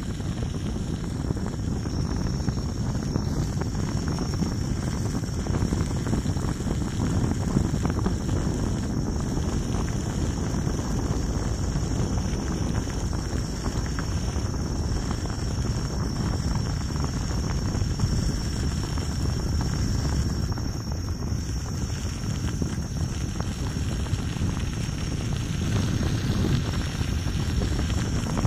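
Steady wind buffeting the microphone over the rolling rumble of a Gotway MSuper3 electric unicycle's tyre on a rough path, with a thin steady high-pitched tone throughout.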